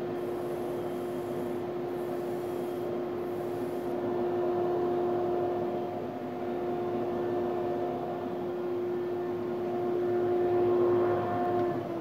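Powermatic 2244 drum sander's drum and the shop dust collector running together with no board going through, a steady hum with a constant tone.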